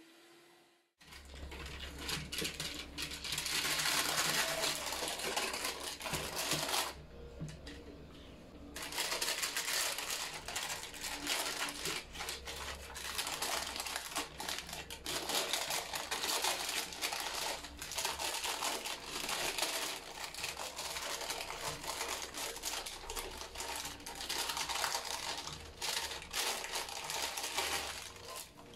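Baking paper crinkling and rustling as a baked meringue is handled and eased off it onto a cake stand, with scattered small crackles and taps. There is a short lull about seven seconds in.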